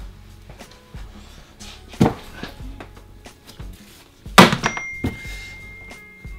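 Background music with a slow beat and sharp hits. A held high tone comes in after the loudest hit, about four and a half seconds in.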